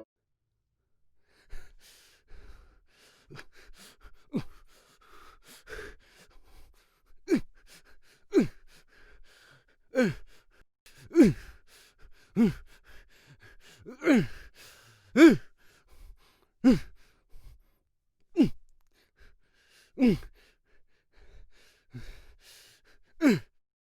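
A man's fight grunts: a string of short, sharp exertion grunts, each falling in pitch, about one every second or so.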